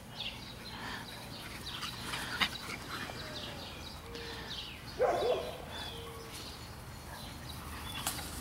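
Dogs at play on grass, with one short bark about five seconds in. Birds chirp faintly in the background.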